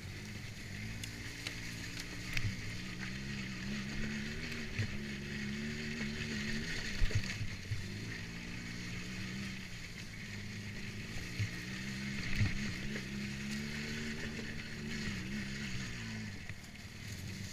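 ATV engine running under way, its pitch rising and falling with the throttle several times, with a few sharp knocks along the way.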